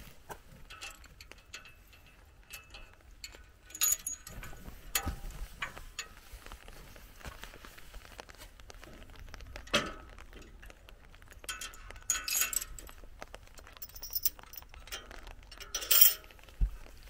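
Iron field gate and its hanging chain being handled, with scattered metallic clinks and rattles and several sharper clanks.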